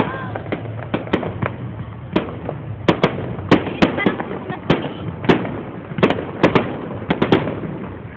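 Fireworks going off: sharp bangs, about two a second at irregular spacing, over continuous crackling, with a short whistle right at the start.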